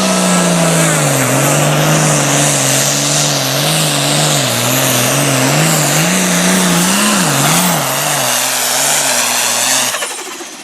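Super Farm class pulling tractor's turbocharged diesel engine at full throttle on a pull, its note dropping about a second in and then wavering up and down as it labours against the sled, with a high turbo whistle over it. The engine cuts back sharply near the end as the pull ends.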